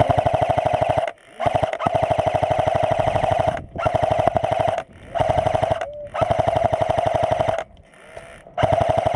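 Airsoft rifle firing long full-auto bursts, six in all. Each is a rapid, even clatter over a steady whine, with short pauses between bursts.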